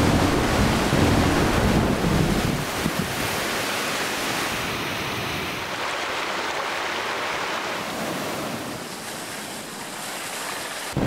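Floodwater rushing in a torrent: a steady, even rush of water, with a deeper rumble underneath over the first few seconds that then fades.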